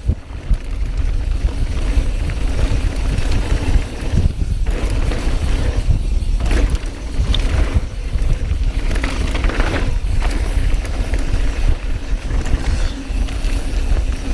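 Mountain bike riding down a trail: wind buffeting the camera microphone over the rolling noise and rattle of the tyres and bike on rough ground.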